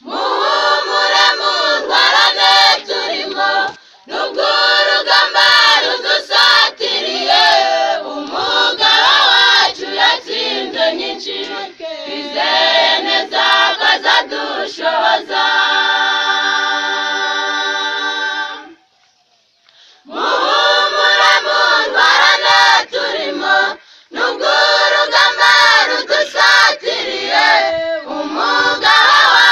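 A choir of mainly women's voices sings a song in Kinyarwanda. A long chord is held about sixteen seconds in, the singing breaks off for about a second, then starts again.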